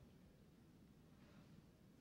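Near silence: room tone in a pause between a man's spoken sentences.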